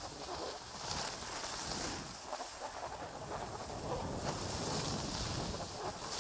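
Skis hissing and scraping over groomed snow through a run of turns, swelling every second or two, with wind rumbling on the microphone.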